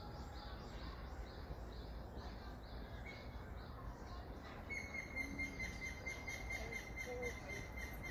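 Woodland birdsong: a high note repeated about three times a second, giving way about five seconds in to a fast run of rapidly repeated notes, over a low steady background rumble.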